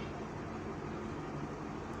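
Steady background hiss with a low, even hum, like a fan or air conditioner running in a room.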